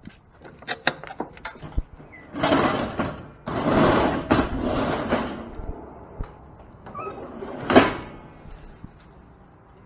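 Metal rear slide gate of a livestock trailer hauled up by its rope and pulley. A few chain and metal clinks come first, then two long scraping slides of the gate, and one sharp metal clank near the end.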